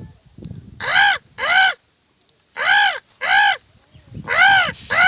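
A man imitating a crow with his voice: harsh caws given in pairs, three pairs in all, each caw rising then falling in pitch.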